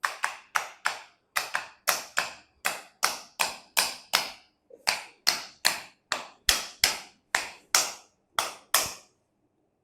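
A big chiropractic hammer striking a patient's tough muscles in a steady run of sharp taps, about three a second, with a brief pause midway.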